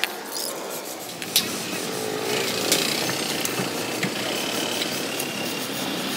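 Aerosol spray-paint can hissing in a steady spray, with a sharp click about a second in as the spray starts.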